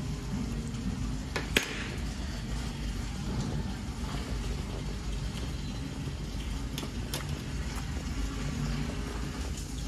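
Quiet dining-room background with a steady low hum, broken by a few sharp clicks of a fork on a plate. The loudest click comes about one and a half seconds in, and a couple more come near seven seconds.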